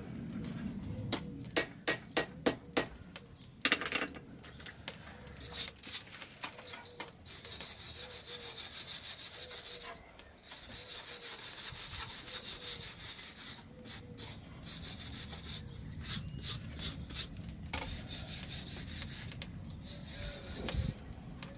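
Work on a forge-welded steel billet: several sharp knocks in the first few seconds, then long stretches of rapid, scratchy scraping, broken by a few more clicks.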